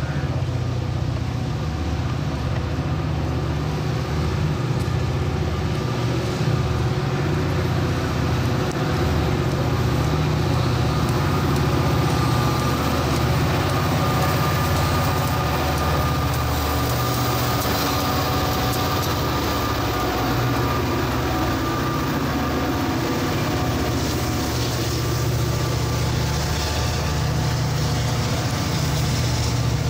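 Diesel locomotive engine running, a steady low throb with a thin steady whine above it.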